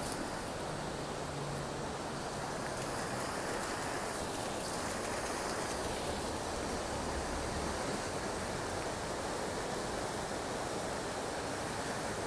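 Floodwater of the storm-swollen Colima river rushing past in a steady, unbroken wash of water noise: the river still in strong spate after the storm.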